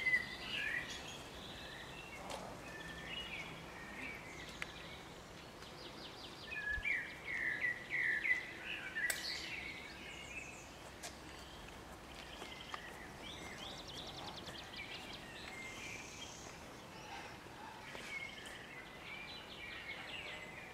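Songbirds singing, short chirping phrases and fast trills coming again and again over faint outdoor background noise, with a single sharp click about nine seconds in.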